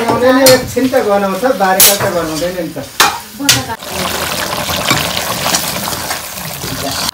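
A metal spoon clinking and scraping against a metal wok of meat, a few sharp knocks in the first half, then the meat sizzling steadily as it fries from about four seconds in.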